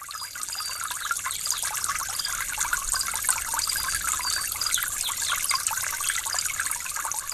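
Steady dense trickling, hissing water-like noise with many quick high chirps running through it, laid in as an ambience sound effect.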